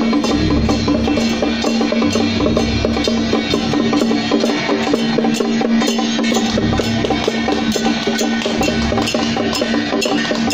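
Temple-procession percussion: fast, dense clashing strikes with low drum beats, over a steady held tone.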